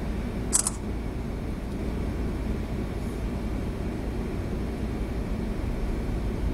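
Steady low rumble of a 1000-foot Great Lakes freighter's machinery, heard from inside the ship's bridge while under way. About half a second in there is one short, sharp hiss-click.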